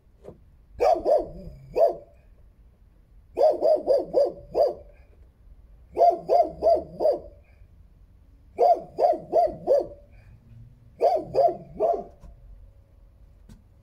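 A dog barking in quick runs of three to five barks, five runs about two and a half seconds apart.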